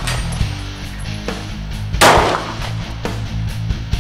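A single shot from a 9mm Glock 26 subcompact pistol about two seconds in, over background music with steady low tones.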